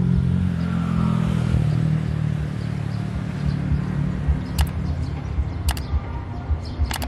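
Low diesel engine rumble and track thumps of an approaching Daewoo DRC diesel railcar set, rendered as train-simulator game audio. Short sharp clicks come about four and a half, five and a half and seven seconds in, from the on-screen subscribe-button animation.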